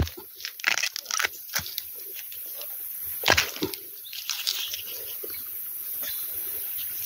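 Crackling and rustling of dry bamboo leaves and twigs underfoot and against the body, in irregular bursts, with a louder snap about three seconds in.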